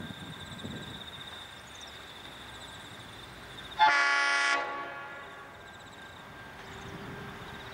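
Horn of an approaching G-class diesel locomotive, G521, sounded once as a short blast of under a second about four seconds in. Several notes sound together.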